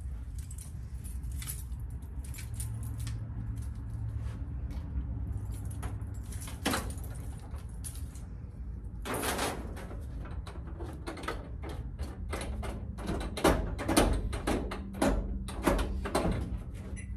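A ring of keys jangling, with metal clicks against the lock of a snack vending machine's door as it is unlocked. The jangling and clicking get busier about halfway through, over a steady low hum.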